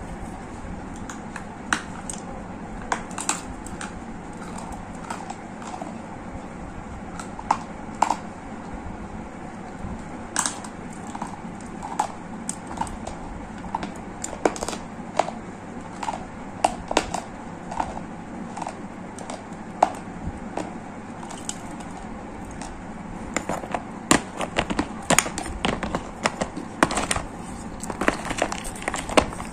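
Dry gray clay crunching and cracking in irregular sharp snaps, coming thicker and louder near the end.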